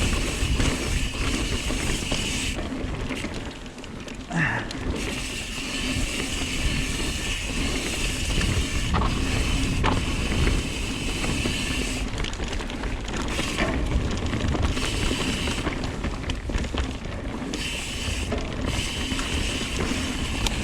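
Mountain bike's rear freehub ratcheting as it coasts down a dirt trail. The buzz drops out for a second or two several times, when pedalling, over a steady low rumble of tyres and wind on the helmet camera.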